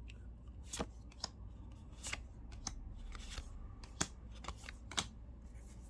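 Magic: The Gathering cards being flipped through by hand, the card stock giving short, sharp snaps and slides at irregular intervals, about eight in all.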